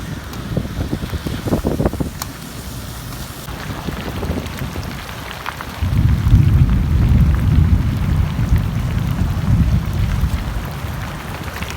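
Rain falling with scattered sharp drop hits, then a long, low rumble of thunder that starts about six seconds in and slowly dies away.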